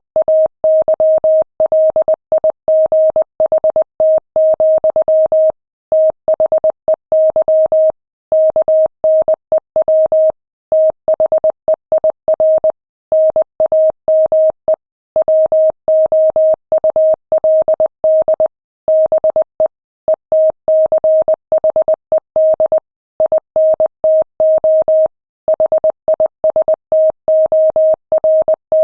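Morse code sent at 20 words per minute: a single mid-pitched beep keyed on and off in short dots and longer dashes, with brief gaps between letters and longer pauses between words.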